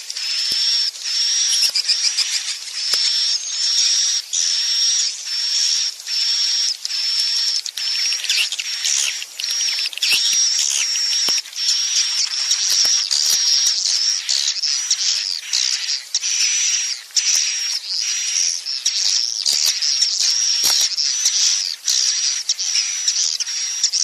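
Recorded swiftlet roosting call ('inap' sound): dense, unbroken high-pitched chirping and twittering of many swiftlets. It is the lure sound played in swiftlet houses to make young birds settle and roost.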